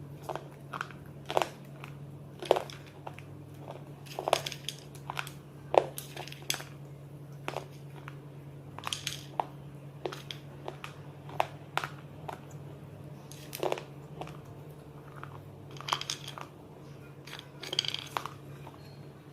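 Close-up crunchy biting and chewing of something hard and brittle: sharp, irregular crunches, roughly one or two a second.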